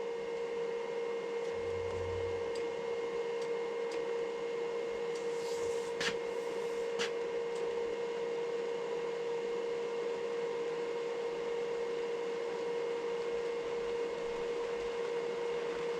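New MIG welder switched on, running with a steady hum and a single held whine, with a couple of faint clicks. The wire feed spool that should be spinning is not turning, so the wire is not feeding.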